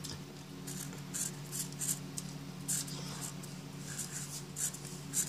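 Black marker writing on lined notebook paper: a string of short, high-pitched strokes, about two a second, as the letters are drawn.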